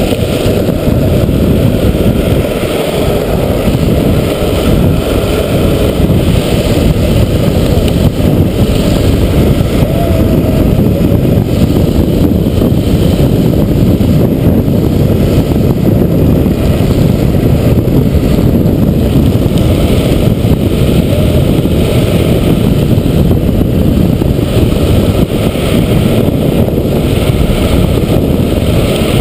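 Hard plastic wheels of a Big Wheel tricycle rolling fast on asphalt: a loud, steady, low rumble.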